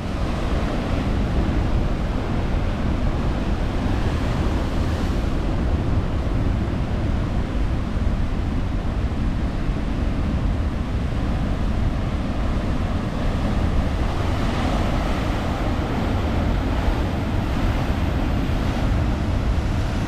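Heavy surf from a cyclone swell, breaking continuously as a dense, steady wash of noise, with wind rumbling on the microphone.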